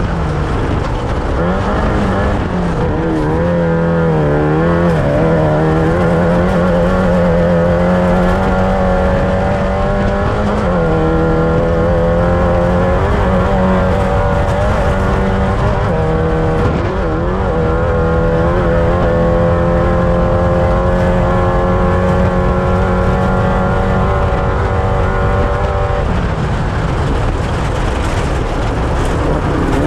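Off-road desert race vehicle's engine running hard and continuously, its pitch wavering and shifting several times as the revs change, over a steady rumble of wind and terrain noise.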